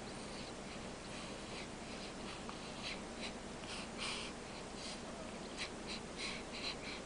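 Wheezy snoring of a sleeping animal: short, breathy, high-pitched snores coming irregularly, a couple a second, the loudest about four seconds in.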